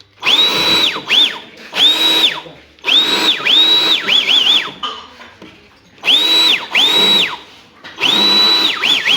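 Small electric dust blower triggered in short bursts of about half a second, some back to back. Each burst is a motor whine that rises quickly to a steady high pitch, holds, and falls away as the motor spins down, over a rush of air.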